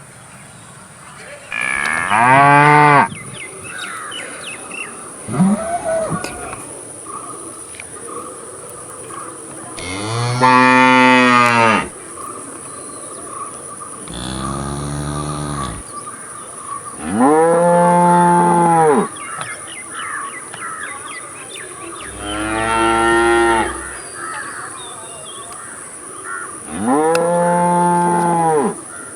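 Cattle mooing: about seven moos, each a second or two long, arching up and then down in pitch, a few seconds apart, over a steady faint high-pitched hiss.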